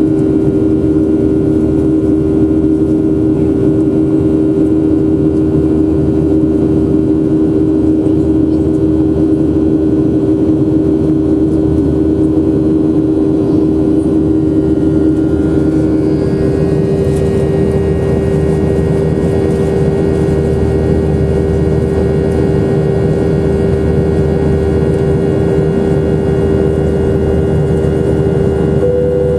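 Jet engines of a Boeing 737-800, CFM56-7B turbofans, running steadily: a loud, even drone with two steady humming tones over a low rumble. About halfway through one of the tones fades and fainter higher-pitched whines come in.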